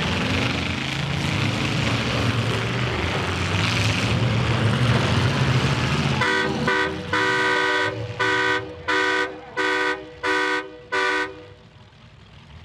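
Demolition derby car engines running and revving, then a horn honking in about seven blasts over five seconds, the first two short and the rest about half a second each. The engines fall quieter near the end.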